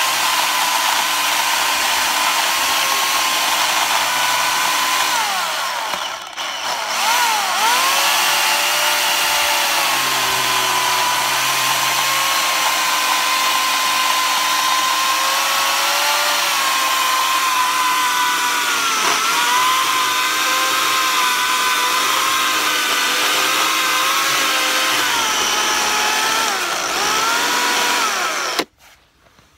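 Electric chainsaw cutting through a green cherry log, its motor whine sagging in pitch under load and picking up again several times, with a brief drop about six seconds in. The motor stops abruptly just before the end as the cut goes through.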